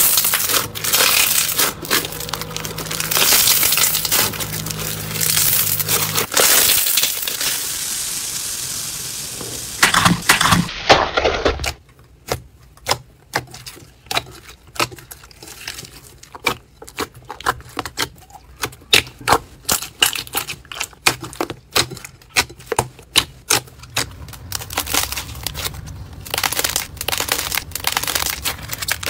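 Hands squeezing and pressing slime, clip after clip. Dense crackling at first, then a long run of separate sharp pops and clicks, about one or two a second, as slime is pressed in a bowl, and dense crackling again near the end.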